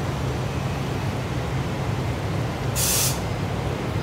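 EF65 electric locomotive creeping forward on departure with a steady low rumble. About three seconds in comes a short, sharp hiss, a brief release of air.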